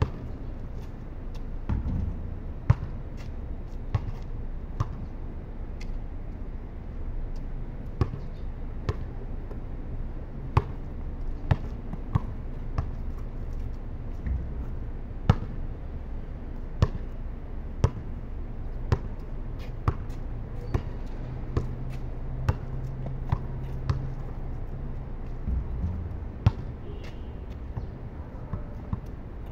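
Basketball bouncing on a concrete court, with sharp thuds at irregular intervals, about one every second or two, over a steady low background hum.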